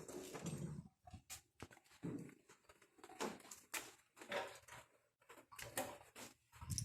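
Faint, irregular clicks and clinks of hand tools being handled: a socket extension and oil filter socket being fitted onto a ratchet.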